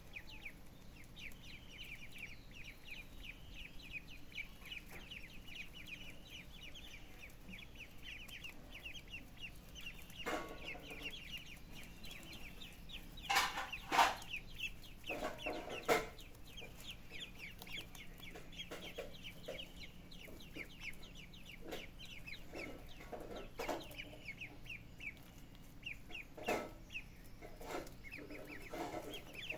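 Chickens clucking, with a run of rapid high peeps through the first part and several louder calls in the middle and toward the end.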